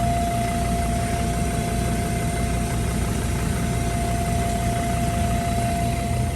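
Vehicle engine idling steadily, with a thin constant whine held above the low rumble.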